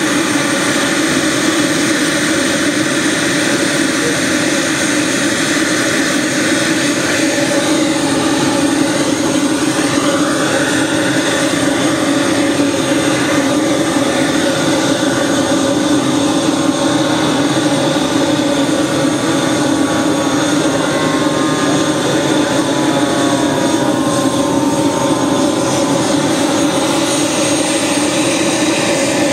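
Model jet's miniature turbine engine running steadily on the ground, a continuous whine at constant speed.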